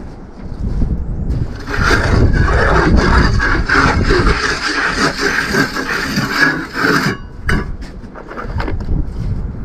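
A hand tool scraping roughly over masonry for about five seconds, starting about two seconds in, followed by a few short knocks.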